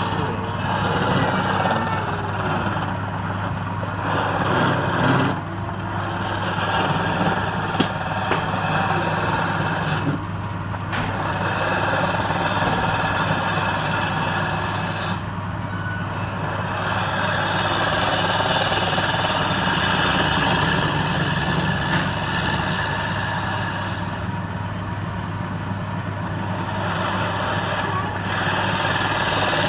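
Wood lathe motor running with a steady hum while a turning tool cuts the spinning wood, giving a rough, hissing cutting noise that stops briefly a few times as the tool is lifted.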